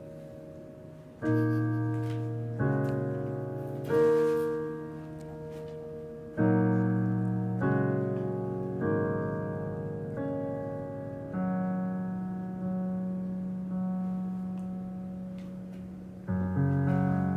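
Background piano music: slow chords, a new one struck about every second and a half, each fading before the next.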